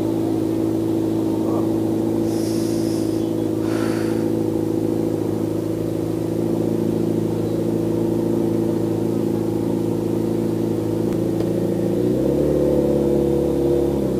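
Motorcycle engine idling steadily. Near the end the note steps up slightly and a deeper engine hum joins in.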